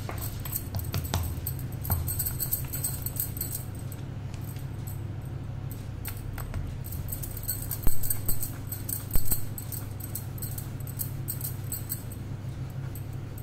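A steady low hum, with two loud dull knocks about eight and nine seconds in as a wooden rolling pin and dough are set down on a wooden rolling board, followed by soft rolling on the board.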